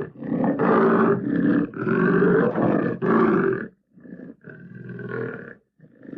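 Tiger roaring: a string of loud, harsh roars with short breaks, then from about four seconds in, a few quieter, shorter calls.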